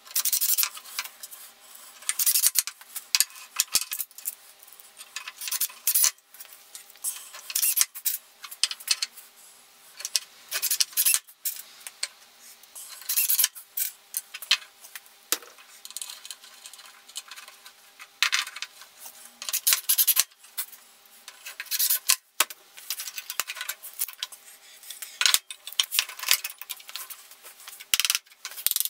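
Cordless drill-driver driving screws into a hardwood fence box in repeated short bursts of about a second, with wood and tool handling in the gaps.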